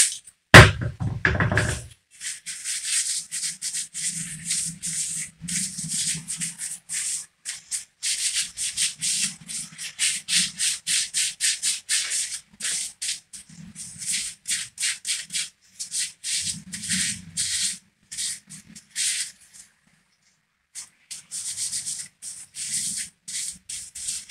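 Rag rubbing an engine main bearing shell clean in quick repeated strokes, pausing briefly a couple of times, to clear manufacturing residue off the bearing surface before fitting. A short louder handling noise comes in the first second or two.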